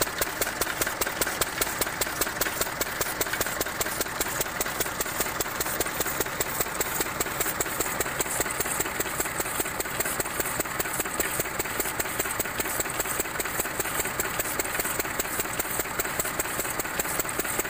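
Single-cylinder stationary diesel water-pump engine running steadily, firing in an even, rapid beat as it belt-drives a borewell pump for field irrigation.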